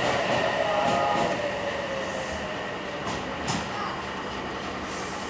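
Electric train running past, its inverter and traction-motor whine falling in pitch over the first second or so, then settling into steady running noise with a couple of light wheel clicks about halfway through.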